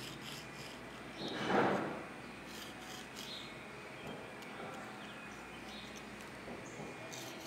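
Faint rubbing and scratching as a pencil marks a small copper sheet and the pieces are handled on the bench, with one louder brief swish about a second and a half in.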